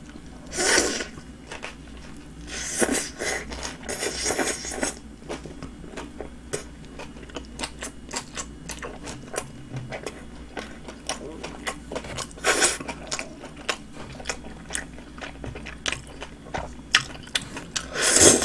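Close-miked eating of a Subway flatbread sandwich: bites into the soft, chewy bread and chewing with many small wet mouth clicks and smacks. Louder bites come at the start, a few seconds in, and near the end.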